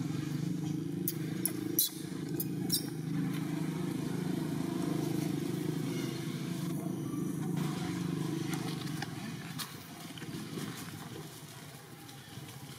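A motor engine running steadily with a low, even hum that fades out about nine seconds in. A few sharp clicks sound in the first three seconds.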